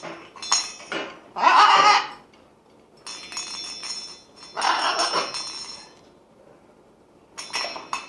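Metal clinking and jingling with a light ringing, from a toy being handled, broken by two short loud calls from a blue-and-gold macaw, about two and five seconds in.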